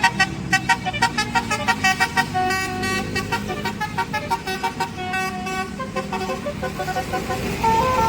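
Bus 'basuri' telolet horn, a multi-note musical air horn, playing a quick tune of short notes that step up and down in pitch, with a few longer held notes near the end. The bus engine hums underneath.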